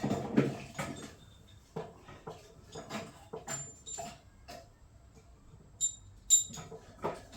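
Metal tools and engine parts being handled: a run of irregular knocks, clicks and rattles, with a couple of sharp ringing metallic clinks near the end.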